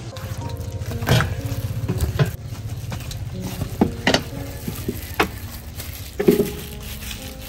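Plastic-gloved hands scooping and working steamed sticky rice in a stainless steel bowl: soft rustling and squishing, with several sharp clicks and knocks against the bowl.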